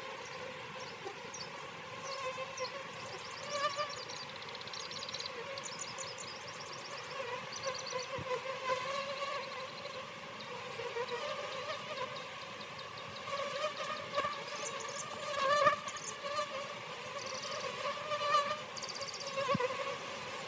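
Honeybees buzzing around an opened hive: a steady drone that wavers in pitch and swells as bees fly close past, loudest about fifteen seconds in.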